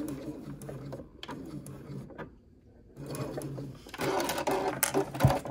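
Electric domestic sewing machine stitching slowly over a nylon zipper, backstitching to secure the seam. The stitching stops about two seconds in, and after a brief pause a louder stretch of machine and handling noise follows near the end.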